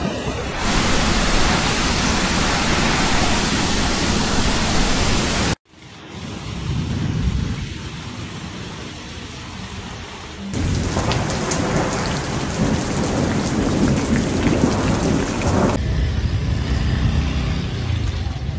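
Heavy typhoon rain and storm wind, a dense, loud noise with a deep rumble under it. The sound changes abruptly several times, dropping out for an instant about five and a half seconds in, and comes back louder with the patter of rain hits from about ten and a half to sixteen seconds.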